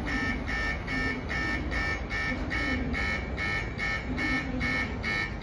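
Electronic station platform bell ringing, a two-tone buzz pulsing about four times a second, over the low rumble of the station and departing train.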